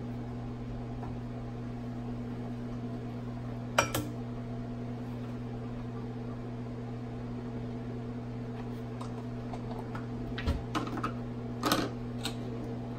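Steady electrical hum from Corning stirring hot plates running, with a sharp knock about four seconds in as a glass flask is set on a hot plate, and a few light knocks near the end as the flasks and plates are handled.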